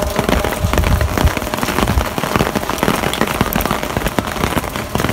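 Heavy rain falling on a hard surface, a loud, dense patter of drops.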